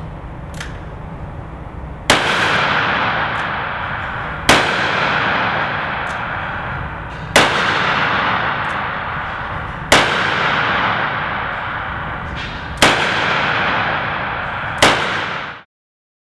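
Alfa-Proj revolver carbine fired six times, slowly, a shot every two to three seconds, each report ringing on in the indoor range. The sound cuts off suddenly near the end.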